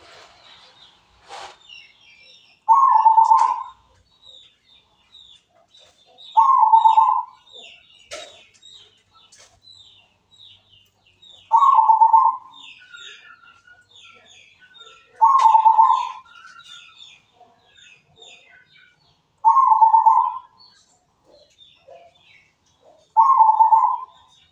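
Zebra dove (local perkutut) cooing: a short, loud coo phrase repeated about every four seconds, six times. Faint high chirps of small birds carry on between the phrases.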